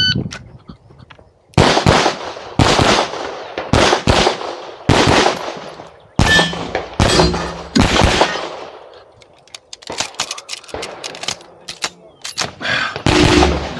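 A shot timer beeps once, then a CZ Shadow 2 9mm pistol fires a rapid string of shots, many in quick pairs, heard close up. Partway through there is a gap of softer metallic clicks as the pistol is handled, and shots resume near the end.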